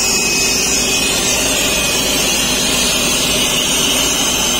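Steady machine noise: a low, even engine-like hum with a steady hiss over it, unchanging throughout.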